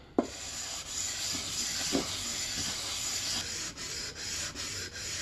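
Throttle tube being lapped on wet sandpaper laid on glass: a steady gritty rubbing, with a light knock just after it starts, settling into back-and-forth strokes of about three or four a second in the second half. The rubbing grinds down the galled face that kept the throttle from turning smoothly.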